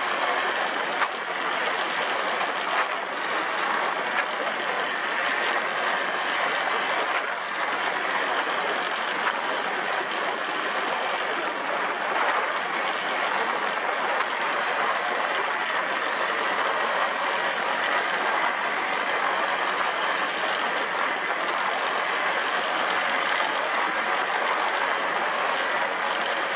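An ATV running steadily on the move: a constant, noisy engine-and-riding drone.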